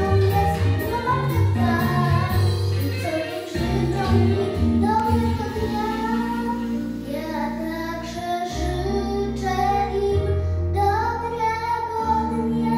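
A young girl singing a song in Polish over instrumental accompaniment with a steady bass line.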